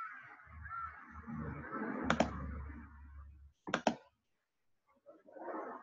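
Computer mouse clicking over faint background noise: a single click about two seconds in, then a quick double click just before four seconds.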